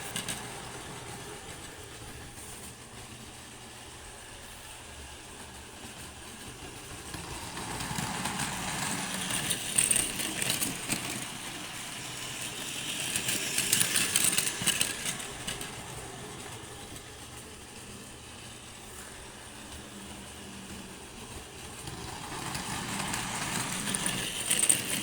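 Passing rail or road traffic: a steady rumble with a rushing, hissing noise that swells and fades three times, about a third of the way in, around the middle, and near the end.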